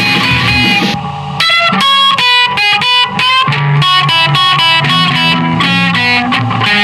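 Instrumental break of a punk-metal song with no vocals. A distorted electric guitar plays a run of quick, separate notes, starting about a second and a half in, over a low sustained rhythm part.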